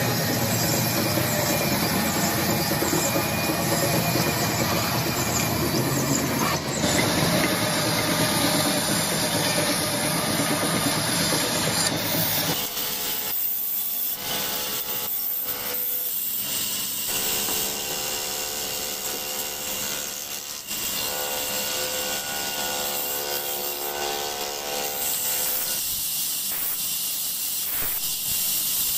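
Band saws cutting wood. First a large log band saw rips through a log with a loud, dense rasp. About halfway in the sound changes to a smaller band saw slicing planks into blocks, with a steadier whine of several tones.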